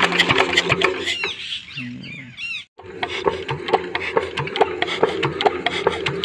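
Comet 5 HP single-cylinder diesel engine running with a regular knocking beat. About a second in, its sound falls away and cuts off; then it is heard again with a steady knock. The engine is stalling after it starts, which the mechanic puts down to air trapped in the fuel injection pump.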